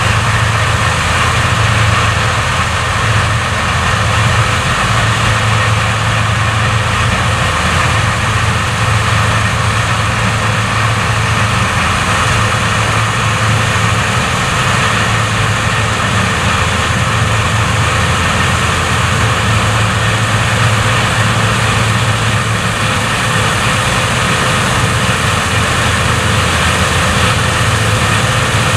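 Claas Lexion combine harvesters cutting wheat: a steady, loud diesel engine note under the even rush of the threshing and cleaning machinery, unchanging throughout.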